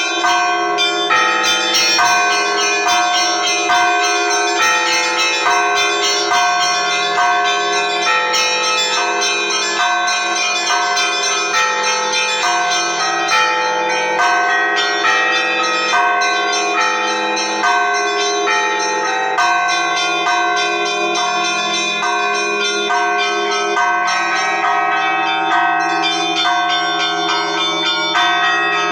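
Russian Orthodox church bells rung together by hand: small bells struck in a quick, even rhythm over the steady ringing of larger bells. This is the peal that calls the faithful to the late Liturgy.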